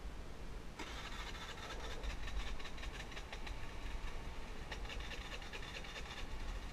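Small motor scooter engine running, with a fast, even chatter that starts about a second in and weakens briefly past the middle.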